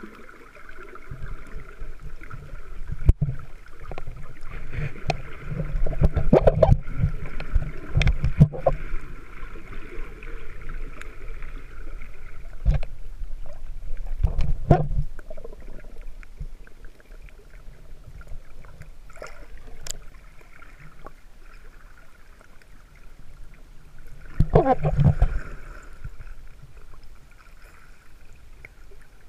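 Underwater sound picked up through a camera's waterproof housing while snorkelling: muffled rumbling and sloshing of water, with scattered clicks and knocks over a steady background hiss. Louder surges come a few seconds in, around the middle, and again near the end.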